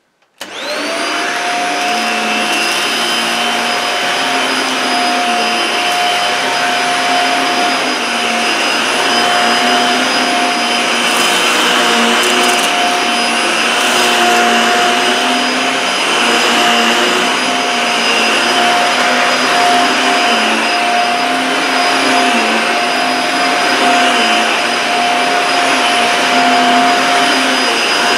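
Dyson Small Ball Multifloor upright vacuum cleaner switched on, its motor spinning up within about half a second to a steady whine. It then runs while pushed back and forth over carpet, sucking up scattered debris, its lower hum wavering with each stroke.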